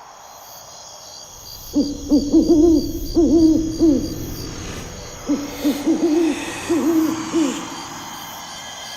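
Owl hooting in two quick runs of short, repeated hoots, played as a night-time sound effect in the show's soundtrack over a faint steady background.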